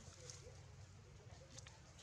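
Near silence: faint outdoor background with a few soft ticks.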